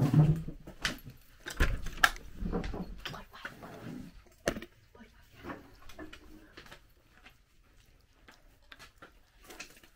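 Scattered knocks, clicks and handling noise from someone moving about with a handheld camera, with a low thump about one and a half seconds in; the sounds thin out and grow quieter after about five seconds.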